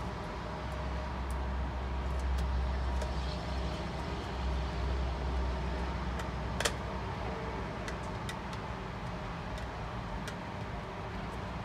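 Light scattered clicks of a screwdriver fastening wires into the screw terminals of a PID temperature controller, with one sharper click a little past the middle. Under them runs a steady low rumble, heaviest in the first half.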